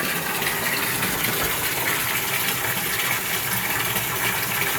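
Water gushing steadily from the tub spout into a walk-in bathtub as it fills, running fast under strong pressure from a 3/4-inch supply line.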